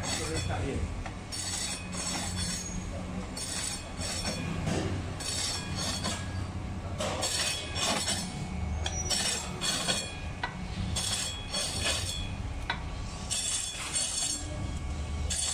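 Electric rotary-blade meat slicer running with a steady motor hum while blocks of palm sugar (gula melaka) are pushed against the spinning blade. It gives a gritty scraping rasp on each pass of the carriage, about one a second.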